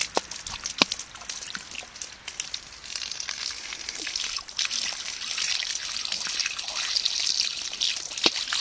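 Water jet from a garden-hose spray nozzle splashing against a horse's muzzle and lips and dripping onto the ground. Scattered splats and drips in the first few seconds, then a steadier hiss of spray from about three seconds in.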